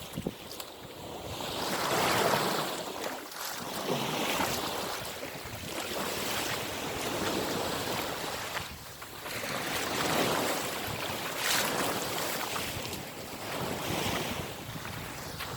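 Sea waves washing onto the shore, swelling and falling back every few seconds, with wind buffeting the microphone.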